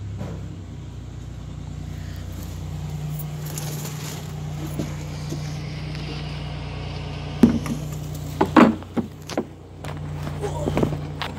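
A steady low mechanical hum, with a few sharp knocks and rubbing noises about seven and a half to nine seconds in and again near the end.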